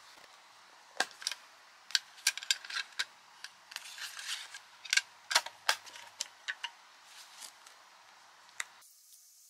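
Small metal tin and stiff paper postcards being handled: a string of sharp clicks and taps as the cards are flicked through, with some paper rustling midway, stopping about a second before the end.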